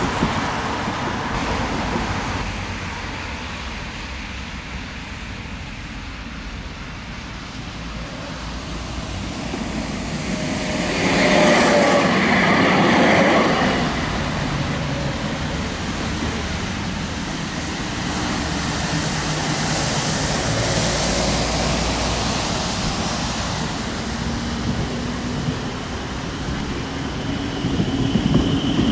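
Tram running along street track: a steady rail rumble that swells louder for a few seconds about eleven seconds in. A thin wheel squeal begins near the end.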